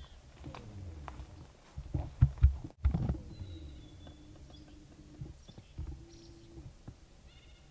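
Footsteps and handling knocks of a person creeping through brush and leaf litter, loudest about two to three seconds in, then a faint, steady low tone through the middle.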